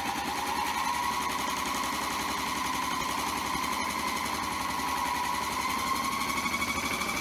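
Washing machine drum spinning at speed: a steady motor whine that rises slowly in pitch over a fast, even pulse.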